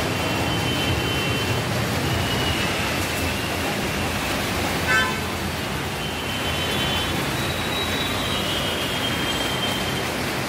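Steady background noise of road traffic, with faint drawn-out high horn tones now and then and one short, louder horn beep about five seconds in.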